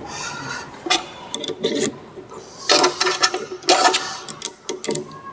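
Small steel machine parts clinking and knocking as they are handled: a chain being fitted onto the shaft of a bench-built paper cutting machine. Irregular clicks and rattles, with two louder metallic knocks a little past halfway and about three quarters of the way in.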